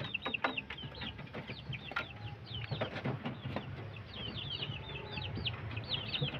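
Chickens peeping inside a bamboo coop: a steady run of short, high calls, each falling in pitch, several a second.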